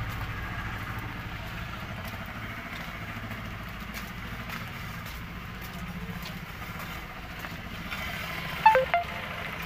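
Truck diesel engine idling steadily, a low even hum. Near the end a brief high chirp cuts in, the loudest moment.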